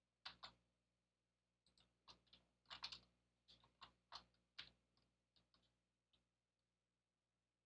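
Faint computer keyboard keystrokes and clicks: a couple at first, then a quick run of about a dozen taps over some four seconds, and a last one near the end.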